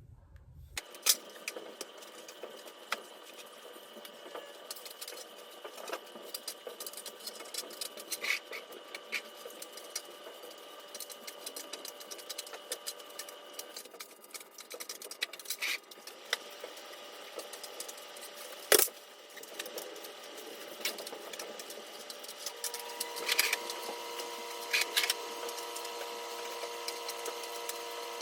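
Scattered clicks, clinks and knocks of small utensils and objects being handled and put away while a workshop is cleaned up, over a faint steady hum; one sharp knock just before the middle is the loudest.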